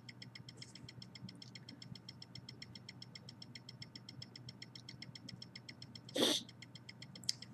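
Faint rapid ticking, about eight ticks a second, steady throughout. About six seconds in, a short sharp sniff through the nose, the loudest sound here, as a sneeze nearly comes on.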